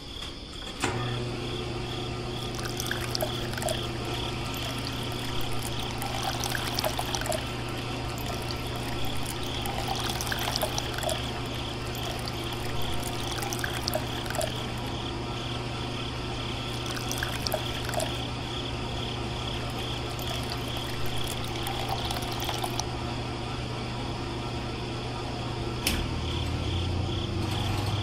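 A small motor starts about a second in and hums steadily while water pours and trickles, with scattered light clicks; a second, lower hum joins near the end.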